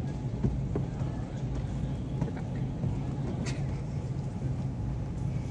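Steady low hum of a large store's background noise, with a few faint light knocks.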